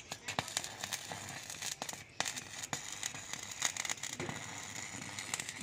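Electric arc from an inverter stick welder crackling and sizzling with irregular sharp pops as the electrode burns into a steel rebar to cut it. The arc catches just after the start and runs on unbroken.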